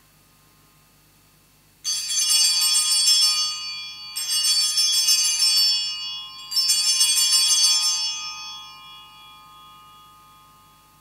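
Sanctus bells, a gold cluster of small altar bells, shaken three times by an altar server, each ring lasting about two seconds, the last one fading away. The triple ring marks the elevation of the consecrated Host.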